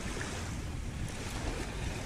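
Steady rushing noise of wind and ocean surf, with a low wind rumble on the microphone.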